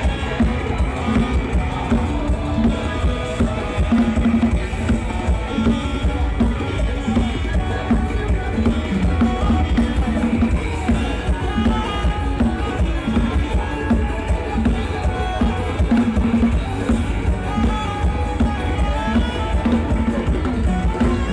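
Music with drums and heavy bass, keeping a steady beat.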